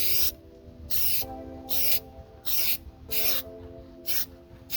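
Aerosol can of Plasti Dip spraying in about six short hissing bursts, quick passes coating silver bolts black. Background music plays under it.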